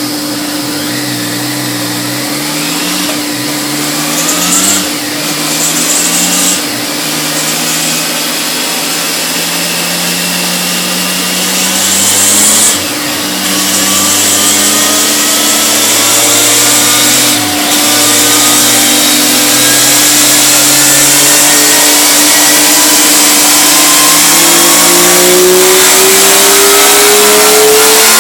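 Triumph 1050 three-cylinder motorcycle engine running on a roller dyno: a few quick throttle blips in the first seven seconds, then held open in gear with its pitch climbing slowly and steadily and getting louder to the end, as in a dyno power run. A steady hum runs underneath.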